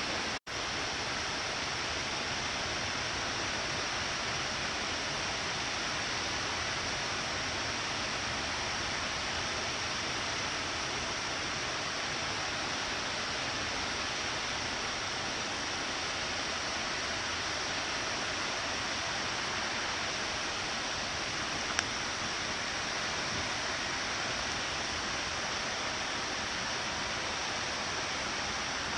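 Steady, even rushing hiss that does not change, broken by a brief dropout just after the start and a single faint tick about 22 seconds in.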